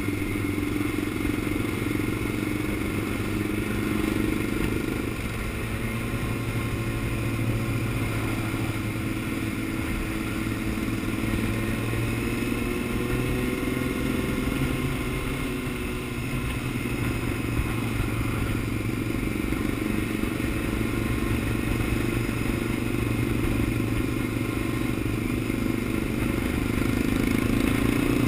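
Honda CBR600F inline-four engine running steadily at highway cruising speed, heard from the rider's seat over road noise. The engine gets a little louder near the end.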